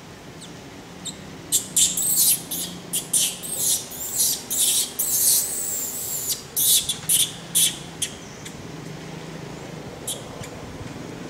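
Baby macaque giving a rapid string of short, high-pitched squeals for about six seconds, some sliding down in pitch, then falling quiet.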